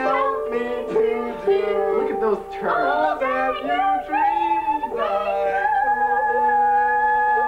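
A small group singing a song together with piano accompaniment, ending on a long held note.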